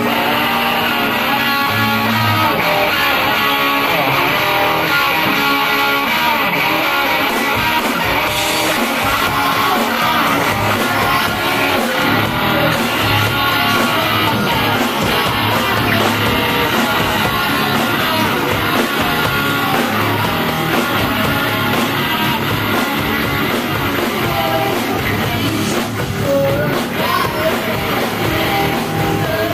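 A live punk rock band playing loud: electric guitar and drums, with a woman singing into a microphone.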